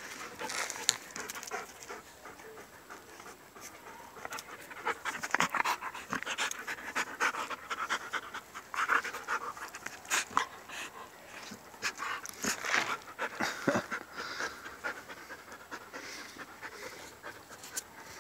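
A dog panting close up, in uneven breaths.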